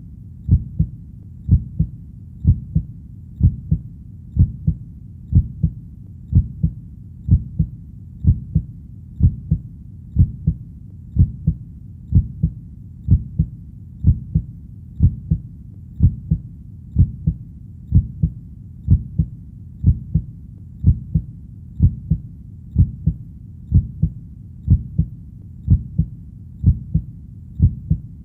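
Heartbeat, a steady lub-dub double thump about once a second, low and even, over a faint low hum.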